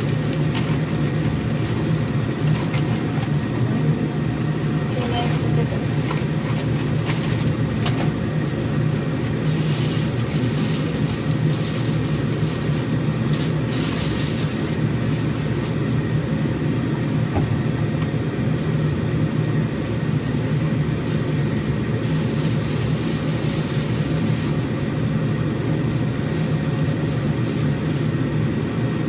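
A steady low rumble of a running vehicle.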